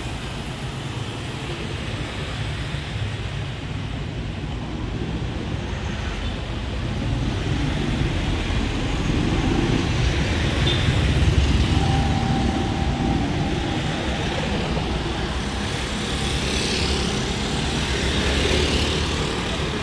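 Street traffic: cars and motorcycles running past on the road in a steady rumble. The rumble grows louder from about a third of the way in and is loudest about halfway through as a vehicle goes by.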